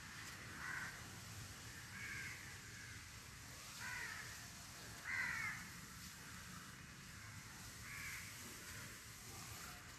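Bird calls outdoors: about five short calls, each under a second and spaced a second or more apart, the loudest about five seconds in, over faint low background noise.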